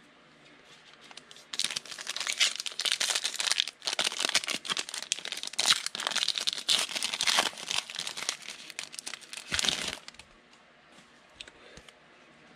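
Foil wrapper of a 2018 Donruss football card pack being torn open and crinkled by hand: a dense, uneven crackle that starts after about a second and a half and stops near the end.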